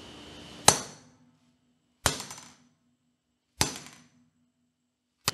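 Hammer striking an iPhone three times, sharp blows about a second and a half apart, each with a brief ringing after it.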